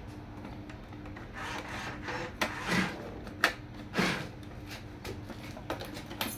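Small electric motors and gearboxes of radio-controlled toy construction vehicles whirring steadily, with several short scrapes and clicks in the middle.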